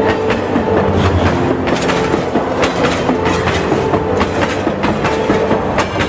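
Clickety-clack of passenger-train wheels over rail joints, heard from aboard the moving train: a quick, uneven run of metallic clacks over a steady rumble.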